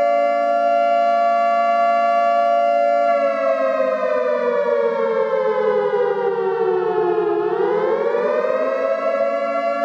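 Civil defense siren sounding a steady tone of several notes at once. Its pitch slides slowly down from about three seconds in, then swings quickly back up about seven seconds in.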